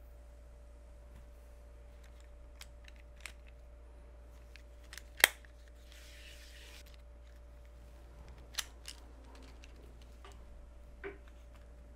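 Canare TS-100E coax multi-stripper clamped and worked on the cable: a sharp snap about five seconds in, then about a second of scraping as the tool is turned around the cable, with a few lighter clicks before and after.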